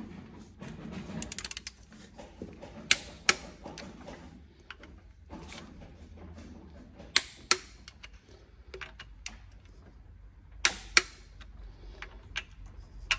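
Click-type torque wrench tightening the timing-chain guide bolts on an Audi A5 2.0 engine to 20 Nm: a short ratchet ticking about a second in, then sharp clicks in pairs about a third of a second apart, three times, as the wrench breaks over at the set torque.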